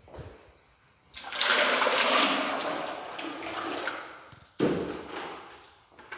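Wallpaper paste being poured from a bucket, a rushing, sloshing liquid sound that starts about a second in and eases off, then a second, shorter pour.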